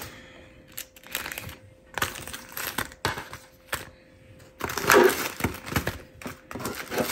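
Small clear plastic bags of packaged earrings crinkling and clicking against each other as a hand shuffles and sorts through the pile on a desk, in irregular handfuls, loudest about five seconds in.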